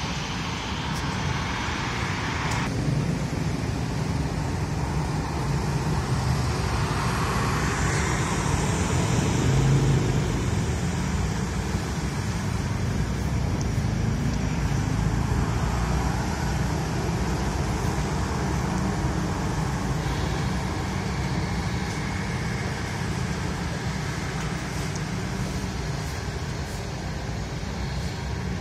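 Steady low engine rumble, swelling and then easing about ten seconds in.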